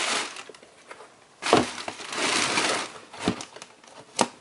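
Tissue paper rustling and crinkling as sneakers are lifted out of a shoebox, with a louder rustle in the middle. A few light knocks follow as the shoes are set down on the cardboard box.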